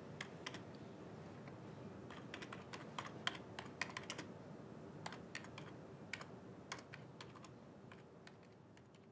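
Typing on a computer keyboard: irregular runs of key clicks, some sharper keystrokes standing out, over a faint steady room hum, growing fainter near the end.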